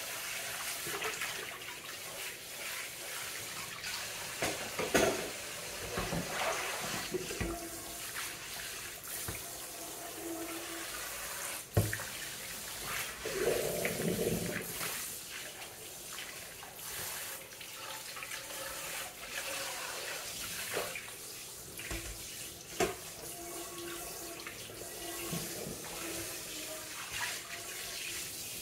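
Kitchen tap running into a stainless steel sink while dishes are washed by hand: a sponge scrubs a plastic bowl and then a frying pan, and water splashes. A few short knocks come through, the loudest about twelve seconds in.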